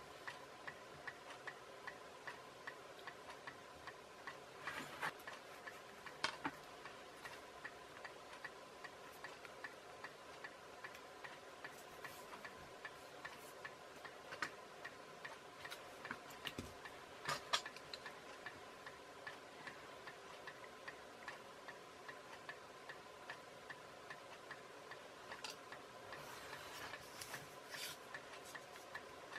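Faint, steady, evenly spaced ticking, with a few louder clicks here and there.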